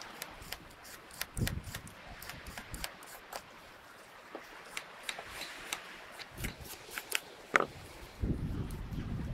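Y-peeler scraping the skin off a raw carrot in quick, irregular strokes, each a short crisp scrape, with a couple of knocks against the wooden cutting board. A low rumble of wind on the microphone comes in near the end.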